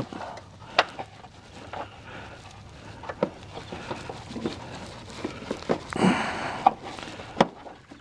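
A wrench tightening a car door hinge bolt: scattered light metallic clicks and taps, a few seconds apart, as the bolt is snugged down.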